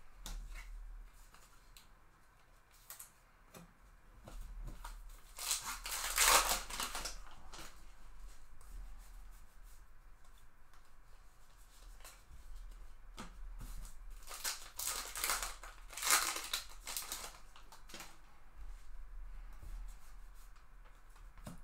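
A stack of baseball cards being handled and slid through the hands. There are light clicks, plus two longer stretches of card-on-card rustling, about six seconds in and again about fifteen seconds in.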